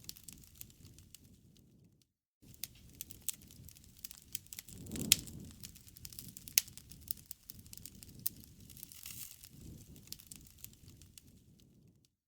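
Campfire crackling, with many sharp pops and snaps over a low rumble of burning wood; the loudest pop comes about five seconds in. The sound drops out briefly about two seconds in.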